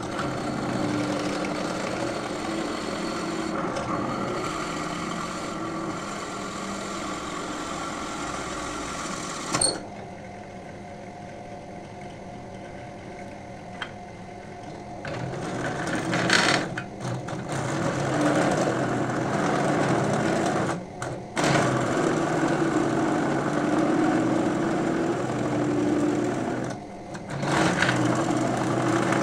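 Benchtop drill press running as its bit drills holes into a coconut shell half, the motor sound rising and falling as the bit bites into the shell. There is a quieter stretch near the middle and two brief breaks in the sound near the end.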